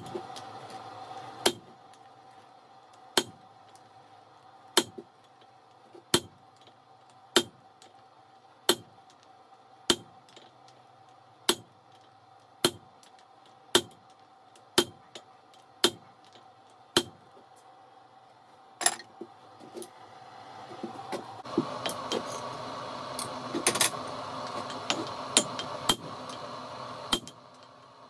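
Hand hammer striking red-hot steel on an anvil in a slow, steady rhythm of about one ringing blow every second and a half. From about 20 seconds in, a steady rushing noise rises under the blows and the strikes come quicker.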